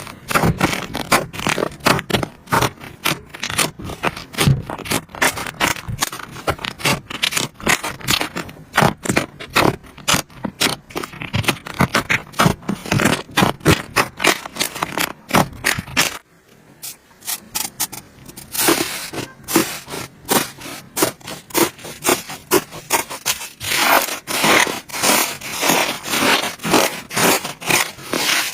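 Slime being squeezed and worked by hand, giving rapid, irregular sticky crackles and pops, with a brief quieter lull a little past halfway.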